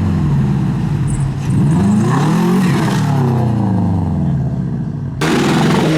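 Subaru's engine being revved repeatedly, its pitch sweeping up and falling back several times. A sudden loud rushing noise joins in about five seconds in.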